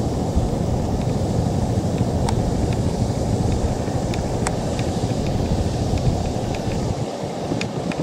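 Wind buffeting the microphone: a steady low rumble that eases in the bass near the end, with a few faint short ticks above it.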